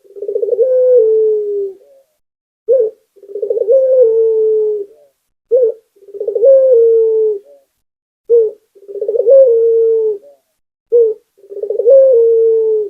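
Puter (Barbary dove) cooing steadily over and over: five phrases, each a short note followed by a longer low coo that starts with a quick trembling roll and then holds a steady tone that sinks slightly at the end.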